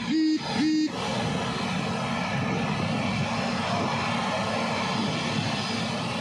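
Steady engine noise of an IndiGo Airbus A320-family jet rolling slowly on a wet runway. Two short, loud beeps sound in the first second.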